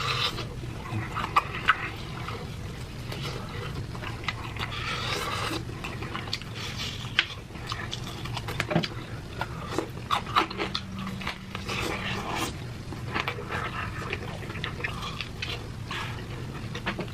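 Close-miked eating sounds: wet chewing and lip smacking with many short clicks, and heavy breathing between bites from eating very spicy chicken.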